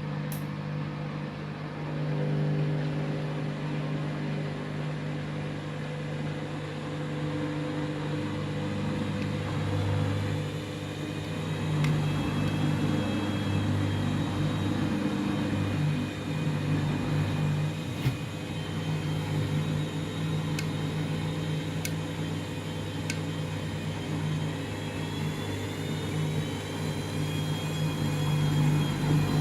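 Candy washing machine's drum motor running with a steady hum and a high whine that rises and falls as the drum tries to spin up through heavy suds, a sudslock holding it back. A few faint ticks.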